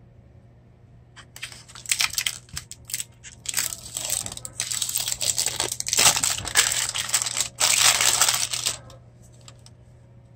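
Clear plastic wrap crinkling and tearing as it is ripped off a roll of copper foil tape: a run of irregular crackles and rustles that starts about a second in and stops about two seconds before the end.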